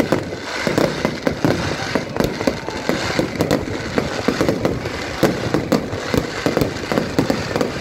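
Fireworks display: a rapid, irregular string of bangs and crackles from shells bursting overhead, with no let-up.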